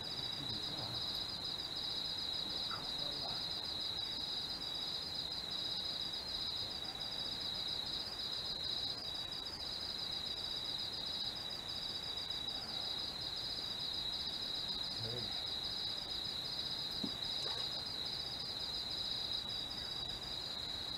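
Steady high-pitched chorus of night insects, a continuous trill with a fast, even pulse.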